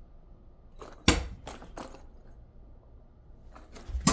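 A small hard toy ball dropping onto the floor: one sharp clack about a second in, then two quicker, lighter bounces, and another sharp click near the end.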